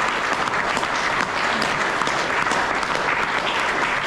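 A large crowd applauding, steady and sustained: many hands clapping together to welcome a team as it stands.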